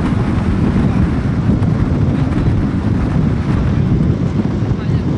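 Wind buffeting the microphone of a moving vehicle as it travels along a road. It makes a steady, loud, low rumble, with the vehicle's running noise mixed in.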